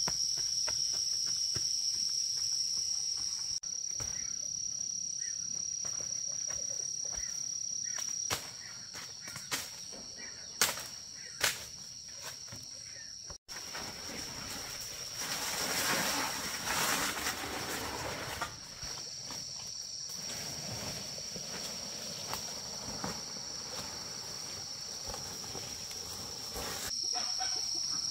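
Insects chirring in a steady high-pitched drone. A few sharp clicks come about ten and eleven seconds in, and a stretch of rustling noise rises in the middle.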